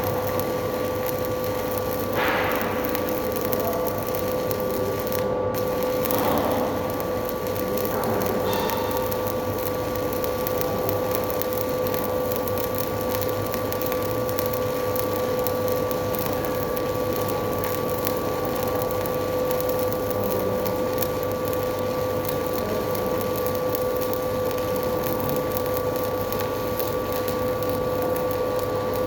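Electric arc welding on a steel discharge pipe: a continuous crackling hiss over a constant machine hum, with a few brief louder scratches in the first several seconds.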